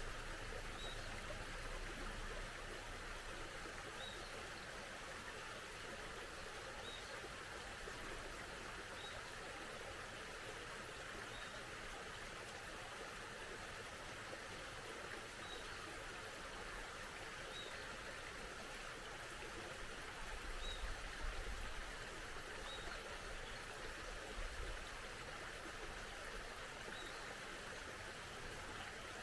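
Small mountain stream flowing steadily, with a bird repeating a single short high chirp every two to three seconds. A few brief low rumbles come about two-thirds of the way through.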